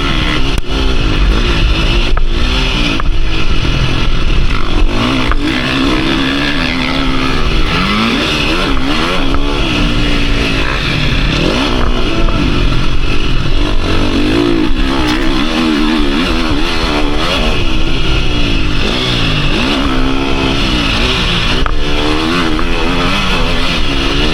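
KTM 350 SX-F four-stroke single-cylinder motocross engine being ridden hard, revving up and dropping back over and over as the rider accelerates, shifts and rolls off the throttle. A few sharp knocks come through near the start.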